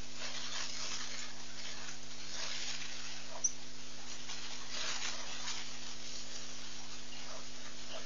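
Outdoor ambience picked up by a live webcam microphone: a steady electrical hum under a constant hiss, with soft scratchy noises every second or so and one short high chirp about three and a half seconds in.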